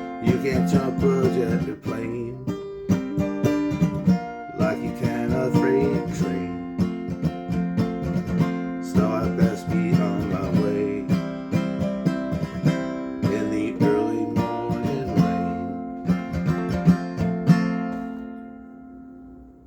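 Acoustic guitar playing a closing strummed and picked instrumental passage, with its last chord ringing and fading out near the end.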